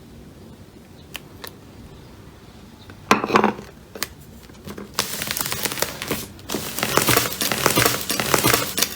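Slime being squeezed and pressed by hand: a few soft clicks, a short squish about three seconds in, then dense crackling and popping from about five seconds in.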